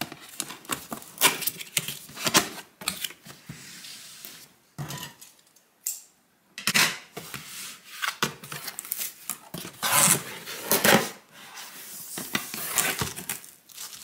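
Cardboard packaging being opened by hand: an irregular run of scrapes, taps and rustles as the box flaps and inserts are pulled about, with a short lull about five seconds in.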